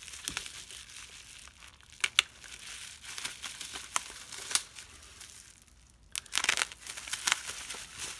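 Plastic bubble wrap crinkling and crackling as a hobby knife slits it and hands handle and pull at it, with scattered sharp clicks and a louder stretch of crinkling about six seconds in.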